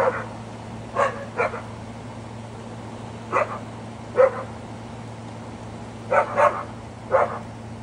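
Dogs barking in short, separate barks, about eight in all, some singly and some in quick pairs, over a steady low hum.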